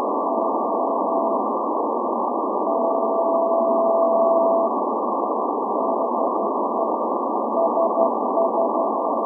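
Morse code beeps from the SVO Athens maritime coast station on 8424 kHz shortwave, received in CW mode: a single tone keyed into dots and dashes, with one long steady tone of about two seconds near the middle, over a constant bed of band-limited static hiss. The keying is the station's channel marker, repeating its call sign SVO.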